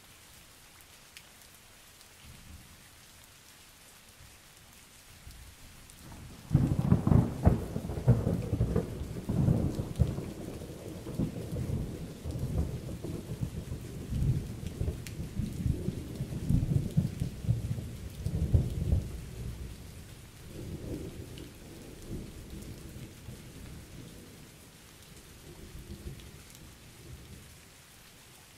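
Steady rain, then about six seconds in a sudden loud thunderclap that rolls on as a low rumble for over ten seconds and fades away in a few fainter rumbles.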